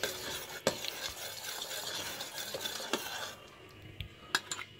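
A metal spoon stirring cherry syrup in a stainless steel saucepan, with a soft even scraping and a few light clicks against the pan. The stirring stops a little after three seconds, and the spoon clinks on the pan near the end.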